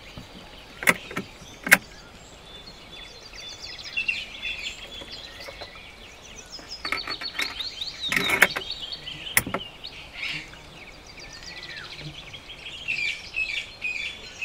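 Small songbirds chirping and singing. Two sharp clicks come about a second in, and a cluster of clicks and knocks about halfway through, from the scoped bolt-action rifle being handled on the rest.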